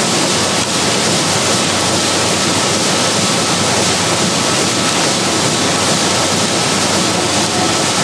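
Steady, loud machine roar at the grain bin, with a faint high whine held throughout.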